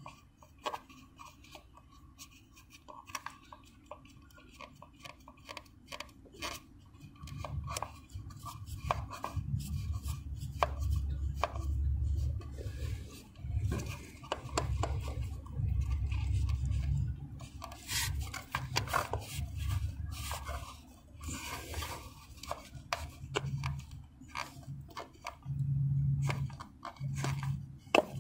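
Ignition coil being twisted and rocked back and forth in its spark plug well: scattered small clicks and rubbing of plastic and rubber, with stretches of low rumble from hand movement. The coil's rubber boot is stuck on the spark plug and has not yet let loose.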